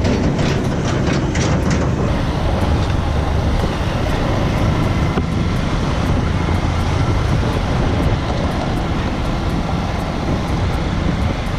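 Onboard sound of a motorbike riding over a rough gravel road: a steady low rumble of engine, tyres on the loose surface and wind, with a run of rattling clicks in the first two seconds.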